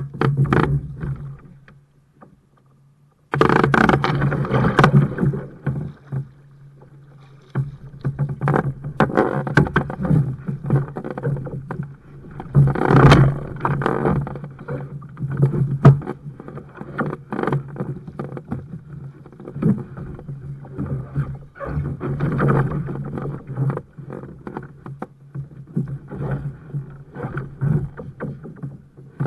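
Water splashing and sloshing around a kayak, with knocks against the hull, as a paddler climbs back into it on the water. The sound cuts out for about a second just after the start.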